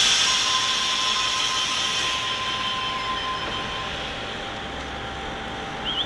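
Tangara electric train's doors closing for departure: a loud hiss that fades over about two seconds, with a steady tone lasting about three and a half seconds. A quick run of short high chirps comes near the end.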